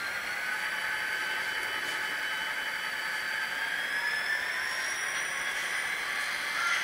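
HO-scale model diesel locomotive's electric motor and gears running with a steady whine that rises slowly in pitch as it rolls along the track, with a few faint clicks.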